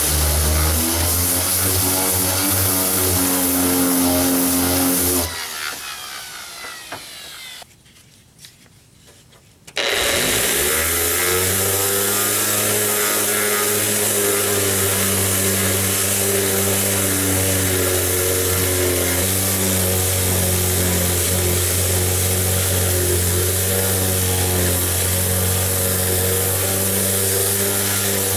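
Electric orbital sander running against the aluminum hull of a jon boat. About five seconds in it is switched off and winds down with a falling whine. After a short pause it starts up again near ten seconds and runs steadily.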